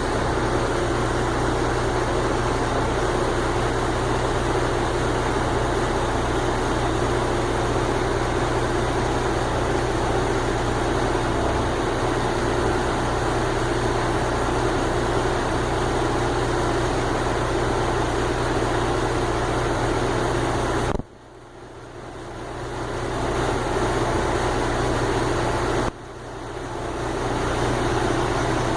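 An engine running steadily with a constant low hum. The sound drops away sharply twice, about three-quarters of the way in and again near the end, and each time swells back up over a few seconds.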